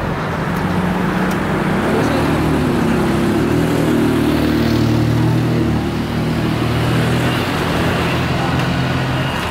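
A motor vehicle engine running close by, a steady low hum that shifts in pitch a couple of times, over street traffic noise.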